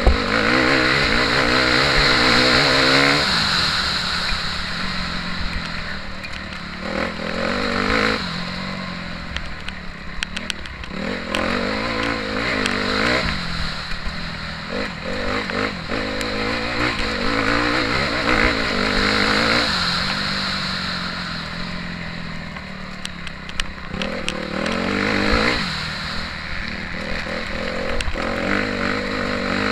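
Motocross bike engine heard from a camera on the bike, revving hard and easing off again and again as it is ridden round the track. Scattered sharp knocks and clatter run through it.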